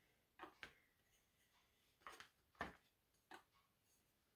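Faint, scattered clicks and taps of thin wooden dowels being handled and set down on a wooden tray, about six in all, the clearest about two and a half seconds in.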